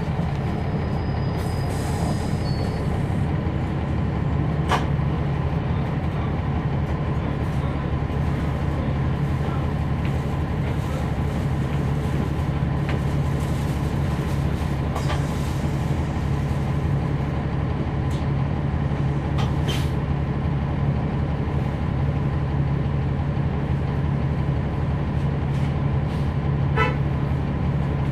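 Inside a NABI 40-SFW transit bus, its Cummins ISL9 straight-six diesel running steadily with a low drone, plus cabin and road noise. A few brief clicks or rattles stand out now and then.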